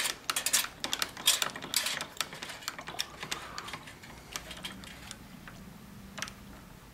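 Irregular metallic clicks and rattles from a small metal lathe's carriage and tool slide being cranked by hand to bring the cutting tool up to the work, densest in the first three seconds, then only a few.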